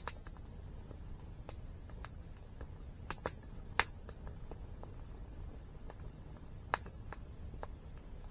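Wood fire crackling, with sharp pops at irregular moments, the loudest about four seconds in, over a low steady rumble.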